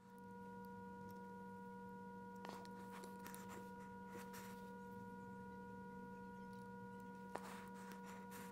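Faint steady electronic drone of a few held tones sounding together, with a few faint clicks, about two and a half seconds in, around three to three and a half seconds in, and near the end.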